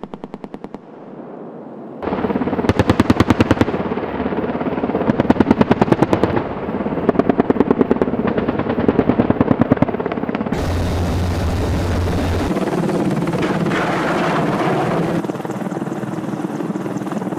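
AH-64 Apache's 30 mm M230 chain gun firing several short bursts of rapid shots over the helicopter's rotor noise. From about ten seconds in there is a long steady rush, deep at first, as a Hellfire missile flies.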